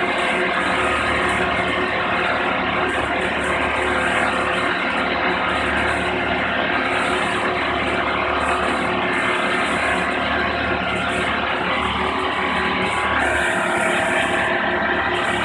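Boat travel lift's engine running steadily under load as it lifts a sailboat in its slings, with a brief shift in its tone near the end.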